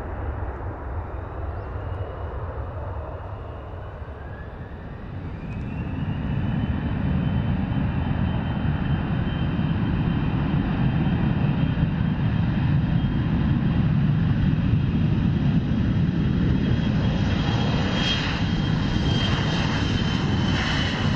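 Twin turbofan engines of a J-AIR Embraer regional jet spooling up on the runway. A whine rises in pitch about five seconds in, then the jet noise grows louder and holds as the aircraft rolls down the runway for takeoff.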